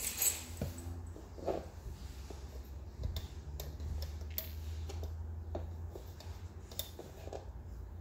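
Scattered light clicks and taps of rubber loom bands being stretched and snapped onto the clear plastic pegs of a bracelet loom, over a low steady hum.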